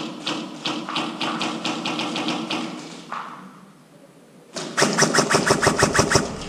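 Airsoft gun fire: a run of evenly spaced shots, about six a second, over a steady hum, stopping about three seconds in. A louder, faster run of about ten shots a second starts near the five-second mark.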